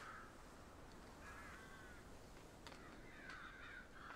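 Near silence with faint crows cawing, three calls spread through.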